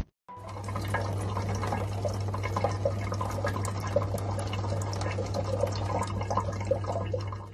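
Water from a faucet running in a thin stream into a sink, trickling and splashing steadily, with a steady low hum underneath.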